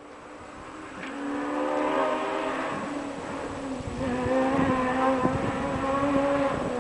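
Engines running with a steady, buzzing drone, fading in from silence and growing louder over the first two seconds, with scattered sharp clicks.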